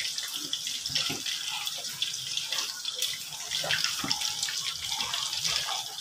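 Pot of chicken soup broth bubbling at the boil while a ladle stirs it, with light scrapes and knocks of the ladle against the pot.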